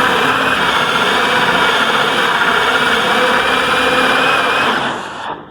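Electric drill running under load, boring a hole through a door with a dull bit; it runs steadily and stops about five seconds in as the bit breaks through.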